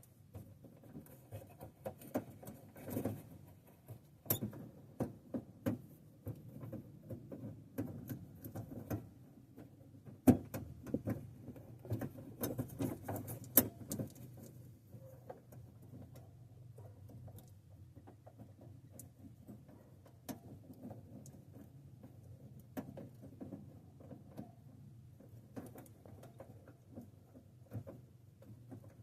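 Irregular clicks, taps and scraping of hands working a headlight bulb and its wiring into the plastic headlight housing, trying to get it seated. The knocks are busiest and loudest in the first half and thin out later.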